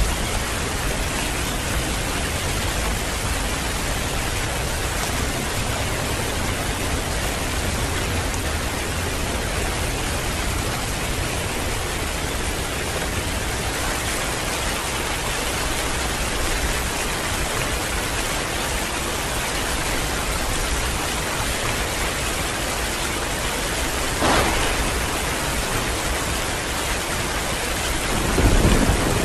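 Heavy rain falling steadily, a dense even hiss. It has two brief louder moments near the end, the second a short low rumble.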